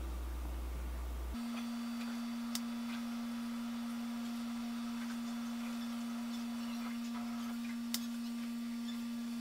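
A low steady hum that gives way, about a second in, to a single steady pure electronic tone that holds on, with two faint clicks.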